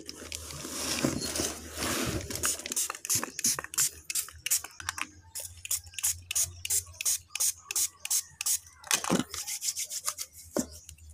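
Spritzes from a small spray bottle onto the palm, then hands rubbing together in quick, repeated swishing strokes.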